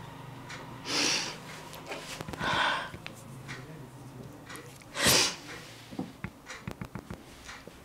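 A woman's heavy breathing: three loud, noisy breaths about one, two and a half, and five seconds in, with small clicks near the end.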